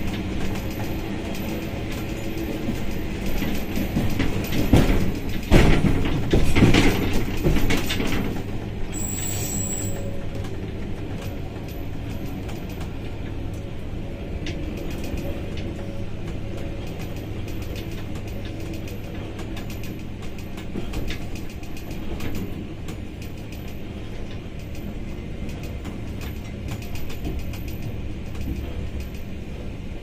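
Train running along the track, heard from the front of the locomotive: a steady engine hum under constant fine clicking and clatter of the wheels on the rails. The noise swells for a few seconds near the start, then settles back to an even run.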